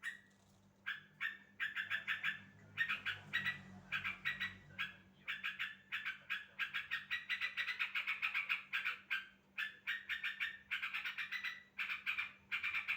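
Yellow-vented bulbul (trucukan) calling: repeated bouts of fast chattering "cuk-cuk-cuk" notes with short gaps between them.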